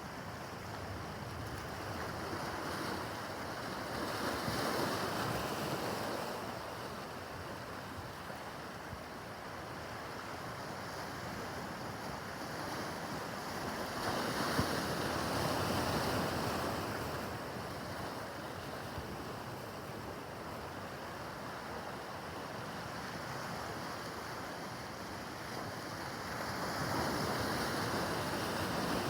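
Rough harbor water with waves washing and breaking, swelling louder in surges roughly every ten seconds, with wind buffeting the microphone.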